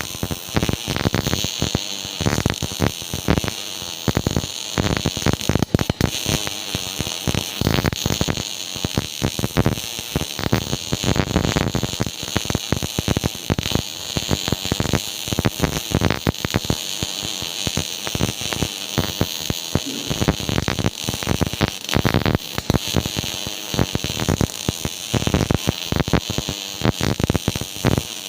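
MIG welding arc crackling steadily: a dense, irregular sizzle of rapid crackles.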